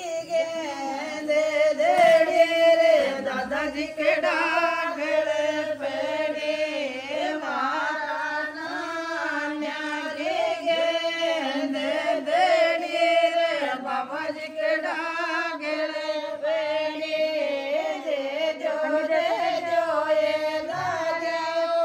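A group of women singing a traditional song together, the voices carrying on without a break.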